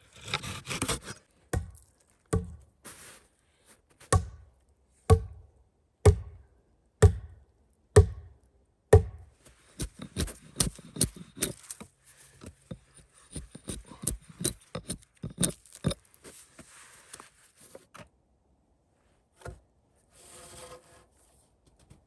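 Wood being chopped with a hand tool: sharp strikes into wood, steady at about one a second for several blows, then quicker, lighter knocks, then scattered handling sounds.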